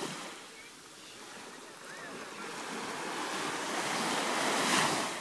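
Ocean surf washing onto the shore, swelling to a breaking wave near the end, with wind buffeting the microphone.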